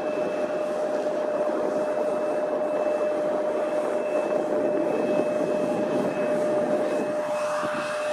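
Jet airliner engines running, a steady rushing noise with a constant whine through it.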